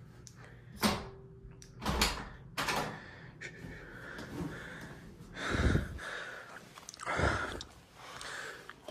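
An interior door's knob is worked and the door opened, with several sharp latch clicks in the first few seconds. Two louder, noisier swells follow later on.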